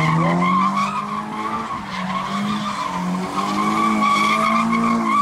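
Car spinning donuts, tyres squealing without a break while the engine note rises and falls with the throttle.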